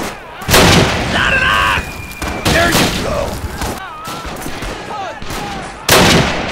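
Battle sound effects: two loud blasts, about half a second in and near the end, with gunfire and soldiers' voices shouting between them.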